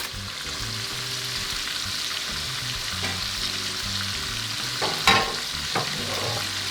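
Flour-coated chicken tenders shallow-frying in hot oil, a steady sizzle. A couple of sharp clinks about five seconds in.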